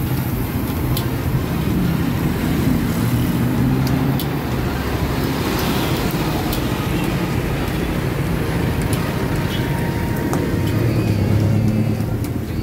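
Road traffic running past: a steady mix of engine and tyre noise from passing cars and other vehicles, with one engine growing louder about ten seconds in.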